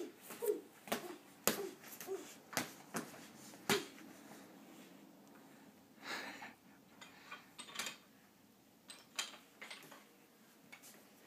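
Boxing gloves hitting a small padded punching bag: irregular sharp slaps and thuds, several in the first four seconds, then fewer and fainter.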